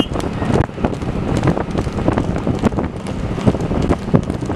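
Heavy wind buffeting on the microphone from travelling at speed, over motorcycle engines running alongside, with frequent irregular knocks throughout.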